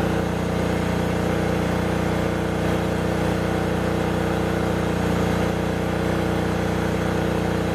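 Generator sold as a 7 kVA unit, running steadily under a heavy load of about 3.3 kW, with two vacuum cleaners running alongside it.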